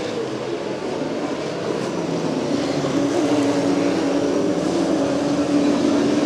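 Late Model stock car engines running at racing speed. The sound grows louder about halfway through and settles into one steady, held drone.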